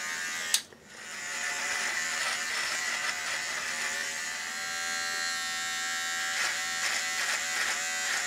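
Cordless electric beard trimmer running with a steady buzz as it cuts through facial hair. A click and a brief drop-out about half a second in, then the buzz returns.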